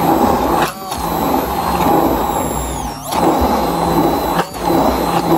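Hand-held immersion blender running in a plastic beaker, grinding soaked almonds, poppy seeds and whole spices with a little water into a thick paste. The motor eases off briefly three times as the blade is moved through the mix.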